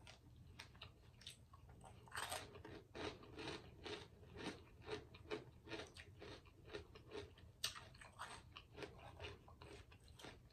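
A person chewing food close to the microphone: quiet, irregular crunches and bites.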